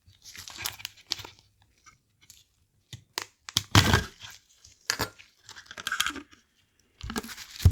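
Irregular bursts of crinkling and scraping with a few sharp clicks, from handling and working on the plastic parts of a Nintendo DSi XL during reassembly; the loudest burst comes about four seconds in.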